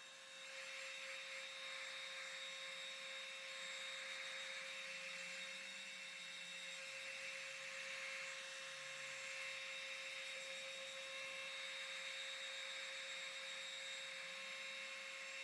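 Heat gun running steadily: a faint even fan hiss with a thin high whine, blowing hot air to dry fresh spray paint.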